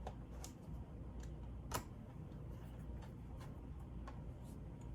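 Small screwdriver driving a screw into a laptop's plastic case: faint, irregular light ticks and clicks, with one sharper click a little under two seconds in.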